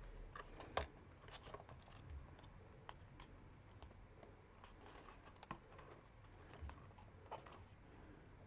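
Near silence with faint, scattered clicks and light rustles of fingers handling and pressing a piece of thin card, one click a little louder just under a second in.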